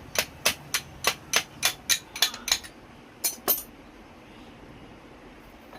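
Hammer striking metal in quick sharp taps, about three a second, stopping about two and a half seconds in, then two more taps about a second later.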